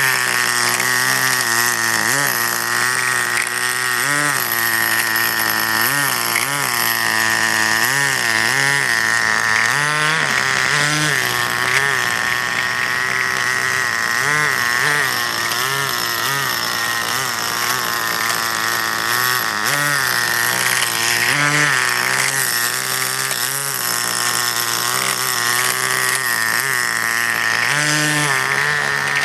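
Small two-stroke nitro glow engine of a Kyosho QRC Wild Dodge Ram RC crawler running and revving up and down over and over as the truck is driven.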